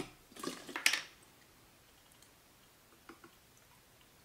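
Glass carafe and stainless steel bar jigger knocking and clinking as they are handled, in a short cluster of sharp knocks within the first second, then only a few faint ticks.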